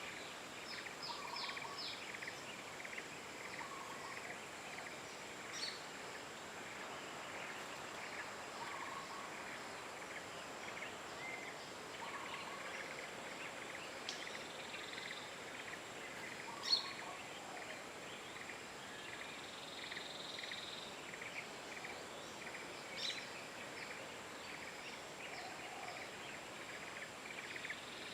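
Outdoor ambience of birds calling: many short, repeated chirps, with a lower short call every few seconds, over a steady high-pitched whine. One sharp click about seventeen seconds in.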